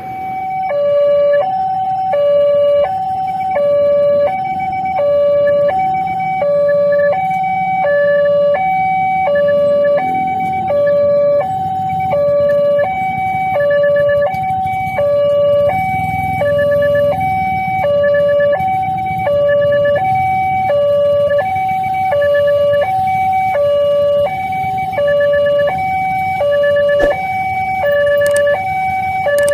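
Railway level-crossing warning alarm sounding: an electronic two-tone signal alternating high and low, about one pair of tones a second, warning that a train is approaching and the barriers are closing. A low rumble runs beneath it.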